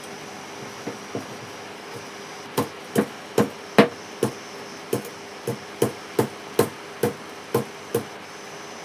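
Hammer strikes in a steady series, two light taps and then about a dozen sharp knocks at roughly two a second, typical of knocking apart a burnt ceiling fan's stator to get its winding out.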